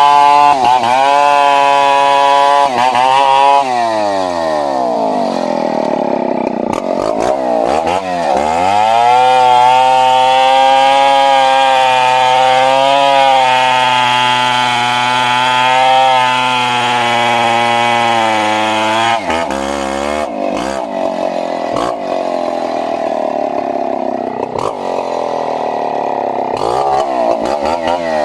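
Two-stroke chainsaw cutting wood at full throttle, its pitch sagging under load. The revs fall away to idle about four seconds in, again near eight seconds and near nineteen seconds, then climb back each time. Toward the end it runs at more uneven revs.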